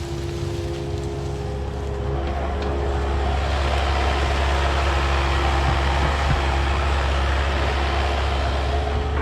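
Diesel engine of heavy brush-clearing equipment (excavator or skid steer) running steadily under load, with a steady whine over the low drone. It grows a little louder about three seconds in.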